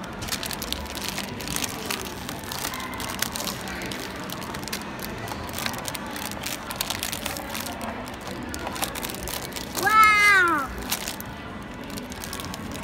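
Foil blind-bag wrapper crinkling and crackling in a child's hands as he works it open. About ten seconds in, one short child's vocal sound that rises and falls in pitch, like a meow.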